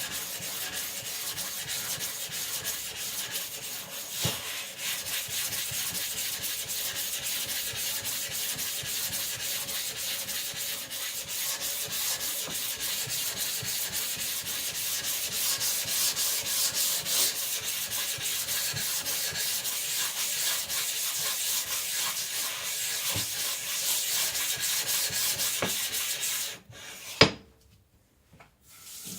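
Wet Naniwa Professional 400 whetstone being flattened against an Atoma 140 diamond plate, a continuous gritty scraping as stone and plate rub together. The scraping stops about three seconds before the end, followed by a single sharp knock.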